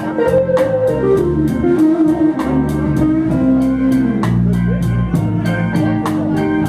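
Live blues band playing an instrumental stretch: a guitar line with bending, sliding notes over bass and a drum kit, cymbal ticks keeping a steady beat.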